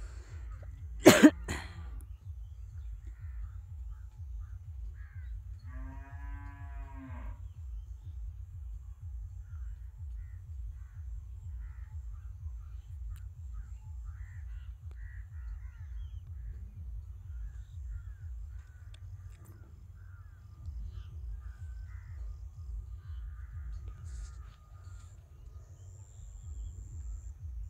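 A cow lowing once, a single moo of just over a second about six seconds in, over a steady low rumble, with faint bird calls scattered through. A sharp knock about a second in is the loudest sound.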